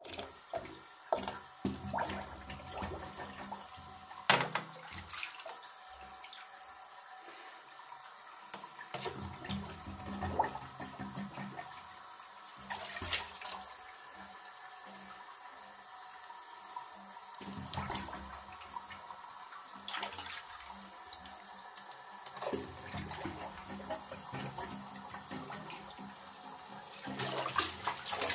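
Rubber plunger being pumped in a clogged toilet bowl, making irregular splashes and sloshes of water. There is a sharp splash about four seconds in and a busier, louder run of sloshing near the end.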